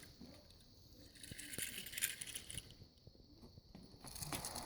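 Faint rustling with scattered small clicks, as of small objects being handled, in two soft stretches about a second and a half in and near the end.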